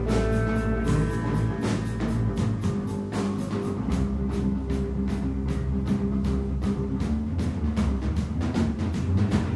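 Instrumental rock trio playing: electric guitar and bass guitar over a drum kit, the drums striking in a fast, even run of about four or five hits a second. The bass drops to a lower note about four seconds in.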